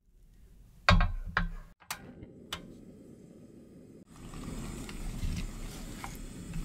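Gas stove burner being lit: the igniter clicks four times, about half a second apart. From about four seconds in, frozen raspberries in a stainless steel pot are stirred with a silicone spatula, a steady low rustle with small knocks.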